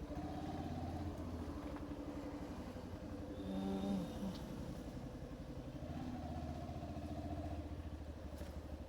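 Motorcycle engine running while the bike is ridden. The engine note rises and settles twice, and a brief higher tone sounds about three and a half seconds in.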